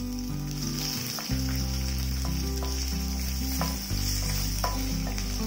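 Tempering spices frying in hot sesame oil in a stainless steel kadai: mustard seeds, chana dal, urad dal and red and green chillies sizzle steadily while a spatula stirs them, with a few sharp clicks. Background music with a steady bass line plays underneath.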